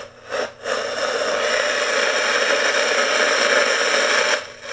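BC-348 aircraft communications receiver's speaker hissing with shortwave static while tuned around 15 MHz in search of a time signal. The noise drops out briefly twice near the start and once near the end.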